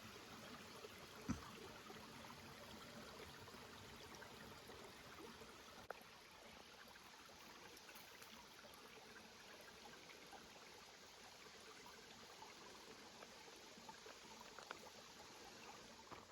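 Near silence: a faint, steady rushing noise, with a single short knock about a second in.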